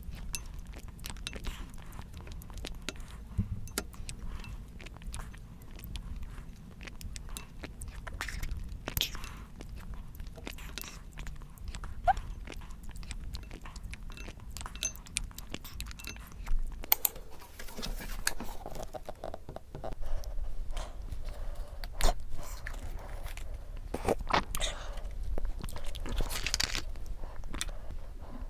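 Close-miked eating sounds: a wooden spoon tapping and scraping in a glass bowl of affogato, vanilla ice cream melting in coffee, with soft mouth sounds of eating it and many small clicks.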